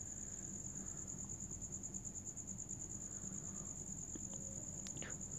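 A steady, high-pitched insect trill runs unbroken over a low steady hum, with a faint click near the end.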